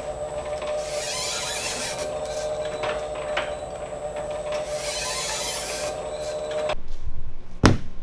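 Platen press set up for foil stamping, running: a steady motor whine with the regular knock of the press cycling and two swells of hiss. It stops abruptly about seven seconds in, followed by a single sharp knock.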